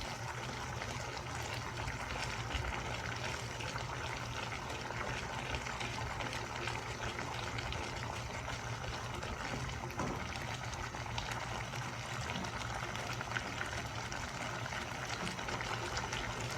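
Thin tomato pizza sauce simmering in a pan, a steady bubbling and light sizzle.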